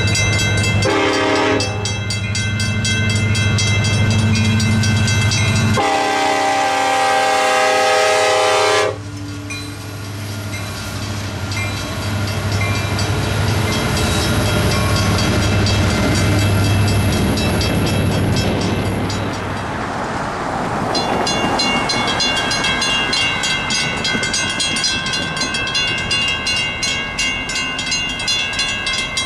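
A mechanical railroad crossing bell rings steadily as a Union Pacific diesel locomotive comes through. The locomotive's horn blows once briefly and then once longer, over its engine drone, and the train's rolling wheel noise follows. About twenty seconds in, the ringing of a second mechanical crossing bell takes over.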